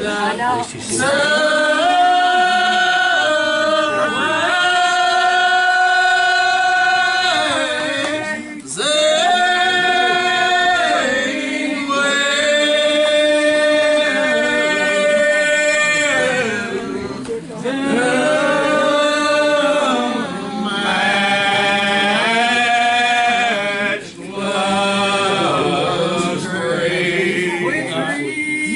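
A church congregation singing a hymn unaccompanied, with slow, long-held notes in phrases and short breaks between them.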